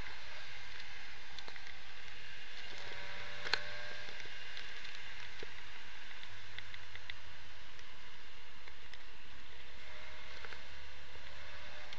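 Steady driving noise inside the cabin of a 1962 Triumph Herald 1200 saloon under way: a low engine and road hum under an even hiss, with a single sharp click about three and a half seconds in.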